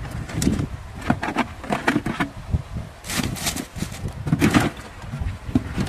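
Irregular knocks, clicks and scrapes of hard shells and a container being handled, with two short hissing rustles about three and four and a half seconds in, as live crabs are sorted into a cooler.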